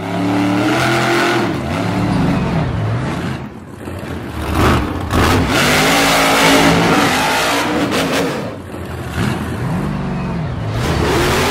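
An RC monster truck's motor revving, its pitch rising and falling once early and once near the end. In between come sharp knocks as the truck hits the ramp and lands in the dirt.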